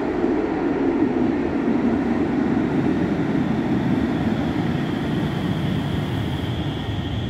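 Cologne Stadtbahn light-rail train running into an underground station, a loud steady rumble of wheels on rails echoing off the tunnel walls. Near the end a thin high whine comes in as the train slows to stop at the platform.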